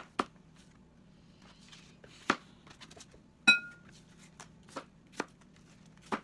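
Large kitchen knife chopping apple into cubes on a plastic cutting board: irregular sharp knocks of the blade striking the board, roughly one a second. One louder knock about halfway through rings briefly.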